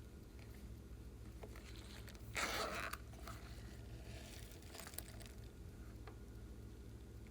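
Glossy slime being worked by hand, with faint sticky clicks and one brief crackling, crunchy squish about two and a half seconds in, over a steady low hum.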